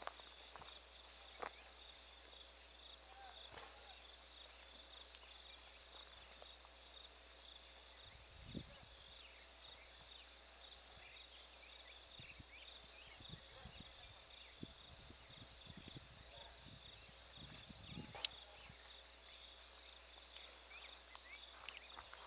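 Faint dusk ambience of evening insects chirping in a steady, high, even rhythm. Scattered soft steps and knocks on the dirt track come through from about eight seconds in, with one sharp click near the end.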